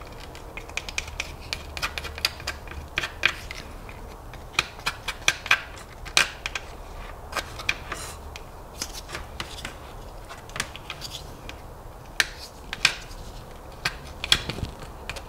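Wooden popsicle stick scraping and tapping against a hot metal standoff on a soldering iron tip, a string of short irregular scratches and clicks, as melted plastic is cleaned off the standoff.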